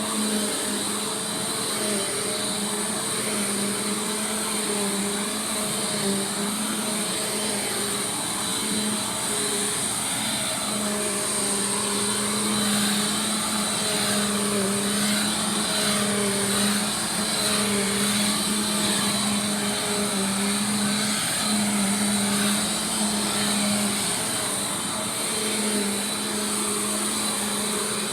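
Bissell PowerForce Compact Turbo upright vacuum cleaner running steadily, its motor hum wavering slightly in pitch as it is worked.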